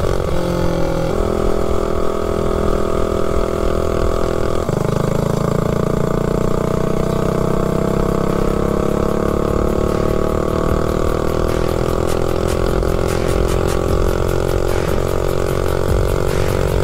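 Tillotson 263cc single-cylinder four-stroke engine on a mini bike running under throttle. Its pitch shifts a second in and again near five seconds, then climbs slowly as it pulls.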